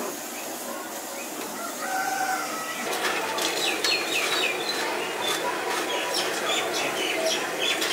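Chickens calling. From about three seconds in, many short chirping calls that fall in pitch overlap, repeating quickly.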